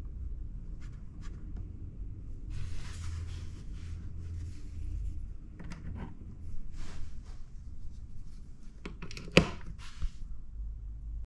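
Small clicks and rubbing as a hand works a hotel headboard control panel: a dimmer knob is turned, then a USB cable and a plug-in charger are pushed into the sockets, with one sharp click about nine seconds in. A low steady hum runs underneath.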